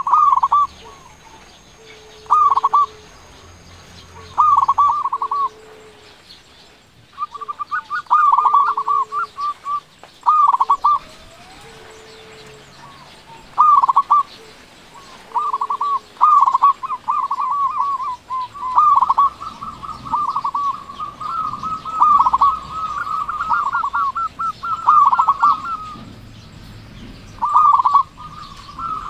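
Zebra dove (perkutut) cooing in repeated bouts of rapid staccato notes, with a short low note between the early bouts. In the second half the bouts come closer together and run almost without a break.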